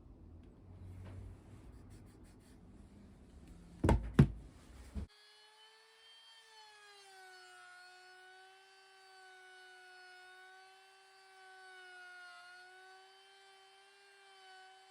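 Two sharp knocks about four seconds in, then a steady high-pitched whine from an electric disc grinder's motor running, its pitch wavering slightly.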